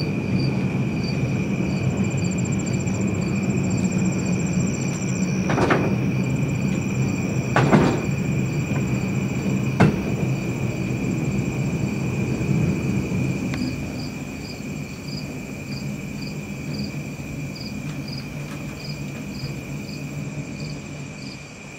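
Fenelon Place Elevator funicular car running on its steep track with a steady low rumble and three sharp knocks, the rumble dropping away about two-thirds of the way through as the car comes to a stop at the station. Crickets trill steadily throughout.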